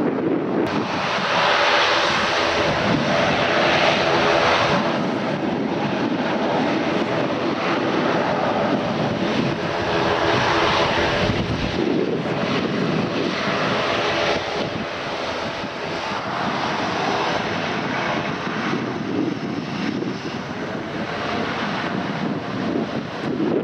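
Airliner engines running as an aircraft moves past at the airport, several steady engine tones under a thick rush of noise, with wind buffeting the microphone.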